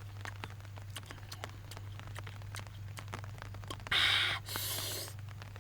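A person eating: faint clicks and mouth sounds throughout, then two short crunching bursts about four seconds in, over a steady low hum.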